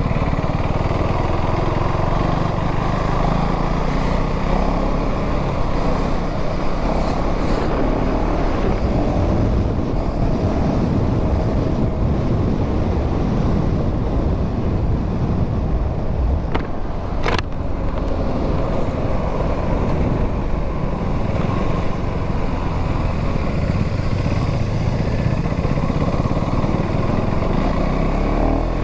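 2025 KTM Duke 390 on its stock exhaust, its single-cylinder engine running steadily while being ridden, mixed with wind rush. A single short, sharp click about seventeen seconds in.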